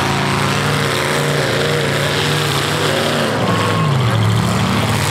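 Several demolition derby cars' V8 engines running together, with one engine revving around three and a half seconds in, its pitch dipping and then climbing.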